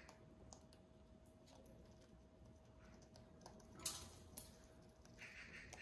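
Faint, scattered clicks and taps from an African grey parrot on its wooden perch, with two sharper clicks about half a second apart a little past the middle.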